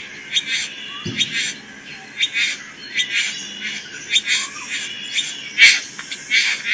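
Male satin bowerbird's courtship display calls at his bower: a rapid series of short, harsh calls, several a second, some with a clear whistled note.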